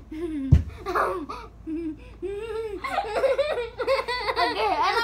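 Two girls laughing in bursts, the laughter rising and quickening in the second half, with a dull thump about half a second in.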